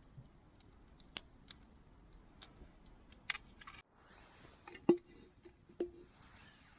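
Scattered light clicks and taps of camp cooking gear being handled. About four seconds in, a faint hiss starts, and two sharp clinks about a second apart each ring briefly, the first one loud.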